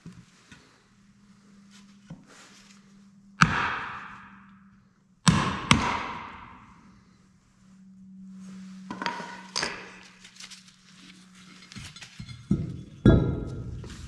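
Hammer blows on a wooden block driven through a Dexter trailer-axle brake-drum hub, knocking out the inner bearing and grease seal. About five sharp strikes, each ringing out briefly, then a few more knocks near the end as the bearing comes free.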